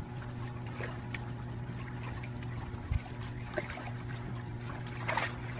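Pool water lapping and trickling around a floating board as a dog shifts about on it, with small splashes and a louder splash about five seconds in. A steady low hum runs underneath.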